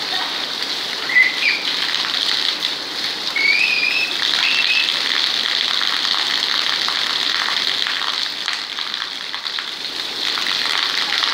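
Heavy rain falling steadily on a concrete rooftop, a steady hiss, with a stream of water from above splashing onto the concrete. A few short high chirps come in the first half.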